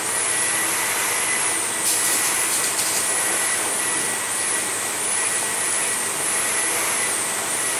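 WashTec Combiwash rollover car wash at work: the spinning top brush and water spray on the car make a steady rushing noise, with a faint high steady whine from the machinery.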